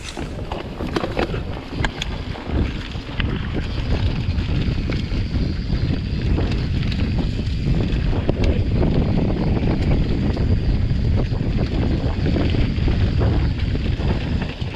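Mountain bike riding downhill on a dirt singletrack covered in dry fallen leaves: wind buffets the camera microphone while the tyres roll over leaves and dirt, with scattered clicks and rattles from the bike over bumps. The rumble grows louder about three seconds in as the bike picks up speed, then stays steady.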